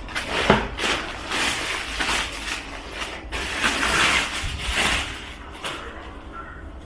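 Packaging being handled as a soundbar is lifted out of its box: irregular rustling and scraping of wrapping, with a sharp click about half a second in, growing quieter near the end.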